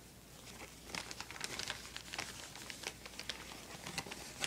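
Plastic zip-top bag crinkling under the hands as a nylon stocking filled with glass beads is tied and folded over inside it. It is a faint, irregular crackle that starts about a second in.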